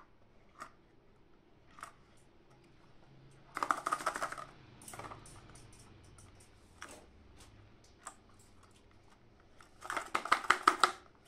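Small cardboard candy boxes handled by gloved hands: scattered faint taps, with two bursts of rapid clicking and rattling, about four seconds in and again near the end.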